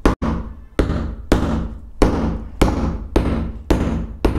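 A red plastic-headed mallet taps a new inner bushing into the bore of a scooter's CVT variator, pressing it in. There are about eight even strikes, a little under two a second, each with a short ring from the metal variator.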